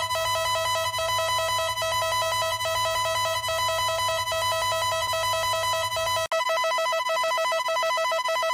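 Electronic emergency alert tone trilling rapidly at fixed pitches, like a fast telephone-style ring, with a brief break about six seconds in.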